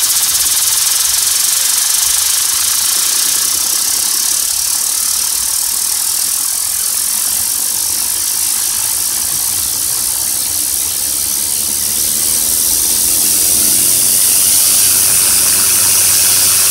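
Compressed air hissing steadily from a hose-fed air blow gun aimed at a fidget spinner, driving it to spin fast. A low hum comes in near the end.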